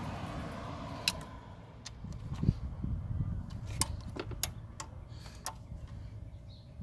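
Ratchet wrench on an extension snugging the bolts on an aluminum water pump housing: scattered sharp metallic clicks and clinks of the ratchet and socket.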